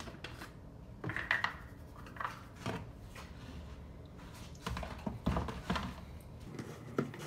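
Seasoning shaken from a small plastic spice bottle onto raw chicken wings in a plastic container. Scattered irregular taps, rattles and rustles come from the bottle and from hands moving the wings, with a cluster about a second in and more near the middle and the end.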